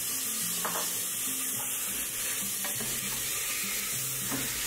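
Ground beef frying in a pan with olive oil, onion and garlic, sizzling steadily, with a few scrapes of a spoon stirring it.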